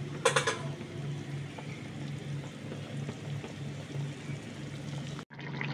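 A pan of taro and potato curry broth boiling and bubbling, with a low pulsing hum underneath. A short sharp sound comes about a quarter second in.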